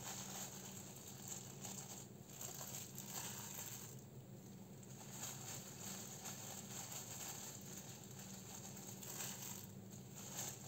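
Faint crinkling and rustling of disposable plastic food-prep gloves as hands arrange fillings on a sushi roll on a bamboo mat.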